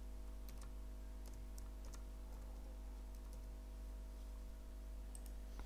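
Faint computer keyboard keystrokes, a handful of scattered key presses typing out a line of code, over a steady faint hum.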